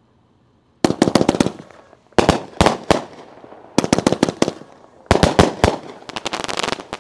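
41-shot 200-gram consumer firework cake firing: after a short pause, groups of sharp cracking reports from the bursting shells come about every second and a half, ending in a quick run of crackle.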